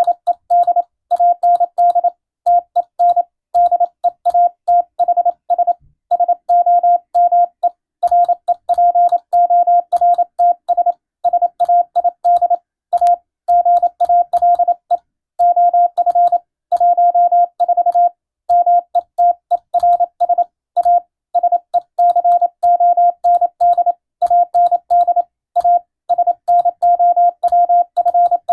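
Morse code (CW) sidetone: a single steady mid-pitched beep keyed rapidly in dots and dashes, sending an English-text radiotelegram for receiving practice. The code runs continuously, with short breaks between characters and longer pauses about six seconds in and about fifteen seconds in.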